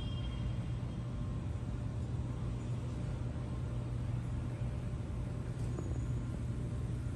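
Steady low rumble of city traffic and engine noise, with a constant low hum.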